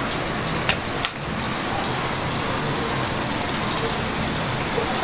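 Steady hiss of chicken pieces frying in hot oil, with two short clicks about a second in.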